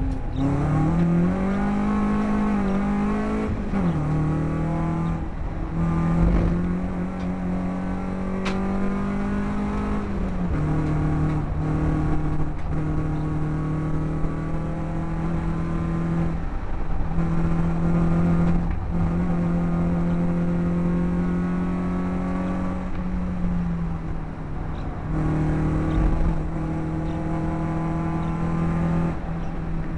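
BMW race car engine heard from inside the cockpit at racing speed, held high in the revs with the pitch dropping sharply several times as the driver shifts gear or lifts off, along with a steady rush of road noise.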